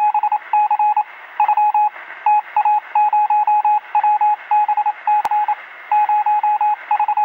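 Rapid electronic beeps at a single pitch, in irregular groups of short and longer tones like Morse code, over a steady radio-like hiss. A single faint click comes about five seconds in.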